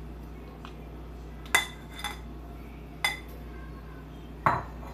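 Kitchen utensils clinking: a metal slotted spatula knocking against dishes, four short ringing clinks spaced about a second apart over a steady low hum.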